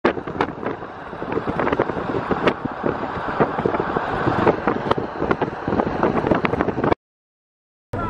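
Steady rushing road and wind noise of a vehicle travelling at motorway speed, with scattered clicks and knocks. It cuts off abruptly about seven seconds in.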